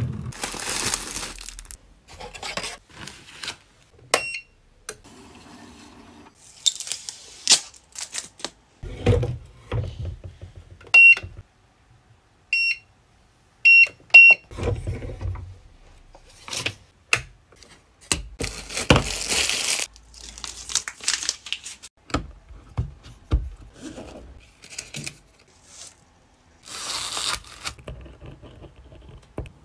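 Rustling and crinkling of plastic packaging and paper being handled, with scattered clicks and knocks. Around the middle come several short, high electronic beeps from a heat press's digital control panel as its buttons are pressed.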